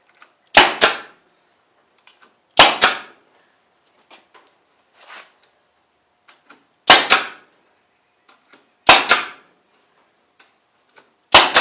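Harbor Freight power stapler firing staples to fasten wire fencing onto a rabbit-cage frame: five sharp shots, each a quick double crack, a few seconds apart.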